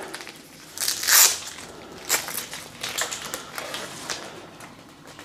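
Bundled power and charging cables being untangled by hand: rustling and crinkling with small clicks, loudest about a second in.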